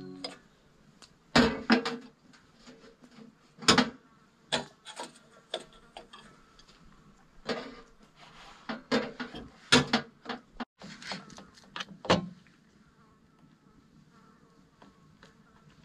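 Irregular clicks and knocks of cookware and utensils being handled on a stainless-steel slide-out camp kitchen, about a dozen sharp strikes that stop after about twelve seconds. A faint buzz of insects runs underneath.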